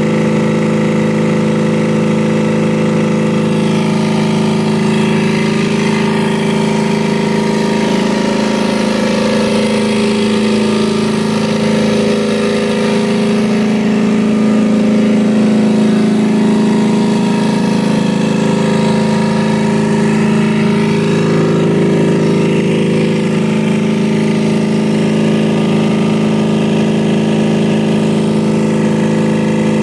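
Reconditioned Carrier 5H60 open-drive reciprocating refrigeration compressor, turned by a belt drive on a test stand, running steadily with no load on it. A continuous even machine hum with several held tones.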